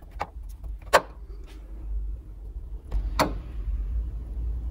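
Hand work on a VW Beetle chassis: small metal parts being handled and fitted, with a sharp click about a second in and a knock a little after three seconds, over a low steady rumble.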